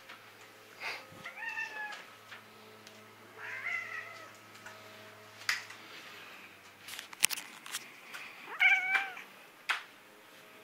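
Domestic cat meowing three times in short, complaining calls while being pestered. Several sharp knocks or taps fall among the later calls.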